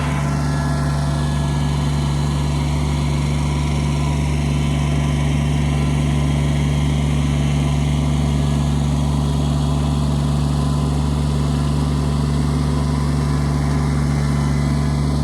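Farm tractor engine running steadily at a constant speed, a low even drone that holds unchanged.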